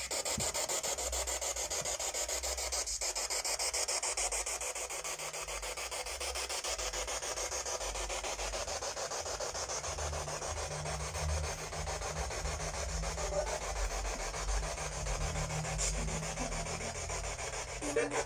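Spirit box (radio-sweep ghost box) hissing with radio static and interference, with a fast, even pulsing as it sweeps through stations.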